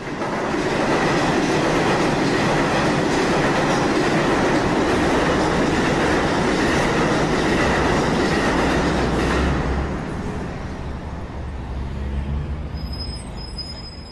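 A train passing at speed: a steady rush of wheel and track noise that eases off about ten seconds in and fades toward the end, with a few thin high tones near the end.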